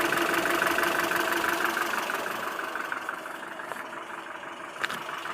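ZMZ-402 four-cylinder petrol engine running with a fast, even knock, which grows quieter about two seconds in, and a single sharp click near the end. The knock comes from play between the piston pins and connecting rods in all four cylinders.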